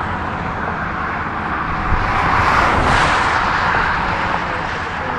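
Steady roadside traffic noise, with a vehicle passing louder about two to three seconds in.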